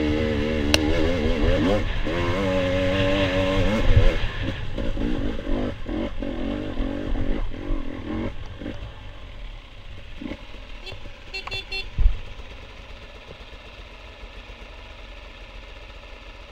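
Off-road motorcycle engine revving hard through mud, its pitch rising and falling, with a sharp knock about four seconds in. It then drops off to a quieter, lower running with scattered knocks and another thump about twelve seconds in.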